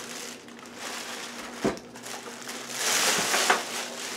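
Plastic wrapping rustling and crinkling as a new rotating pizza oven is handled out of its packaging, with a single knock about one and a half seconds in and a louder rustle a little later.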